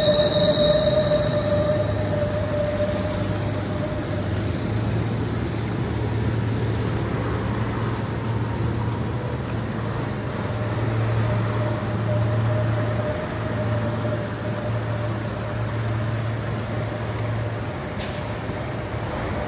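Steady city road traffic noise with a low rumble, heard from an elevated walkway above the road. A high whine fades out in the first two seconds.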